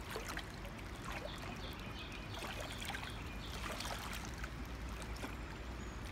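River water lapping and trickling at the bank over a low steady rumble.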